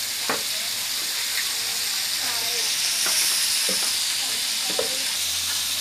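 Small whole fish deep-frying in hot oil in an aluminium wok, a steady sizzle with a few sharp clicks.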